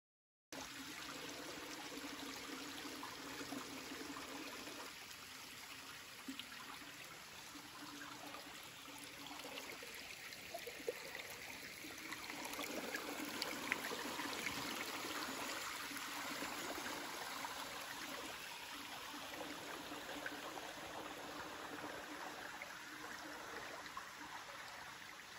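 Shallow stream running over stones, a steady rush of water that grows a little louder about halfway through.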